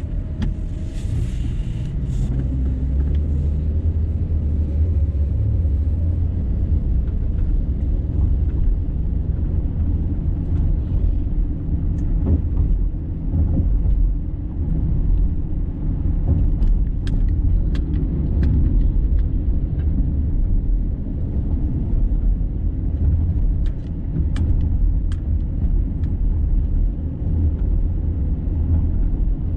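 Steady low rumble of a car driving on the road, with a brief hiss about a second in and a few faint ticks scattered through.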